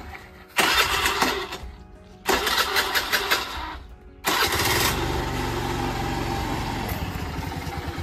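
Honda scooter's small single-cylinder engine starting about four seconds in and then idling steadily. Before it, three loud sudden hits that each die away over a second or so.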